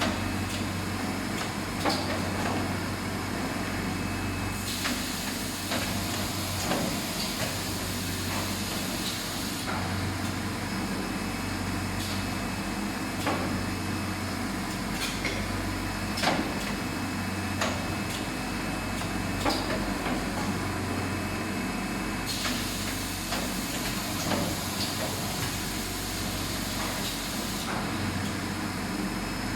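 Hardcover book case-making machine running, a steady mechanical din with a low hum pulsing about once a second and sharp knocks every second or two as it cycles.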